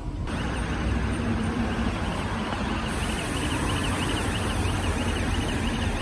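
Street traffic noise: a steady wash of passing road vehicles.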